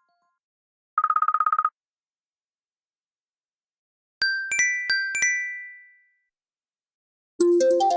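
iPhone alert tones played one after another. About a second in there is a short, rapidly pulsing electronic tone; a few bell-like chime notes ring out and fade around the middle; near the end a musical ringtone starts.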